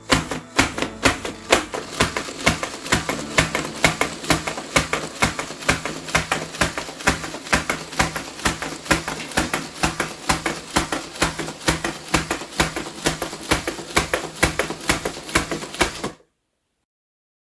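Lego Technic walker clattering as it walks: plastic legs and gears clicking rapidly over a steady motor hum, cutting off suddenly near the end.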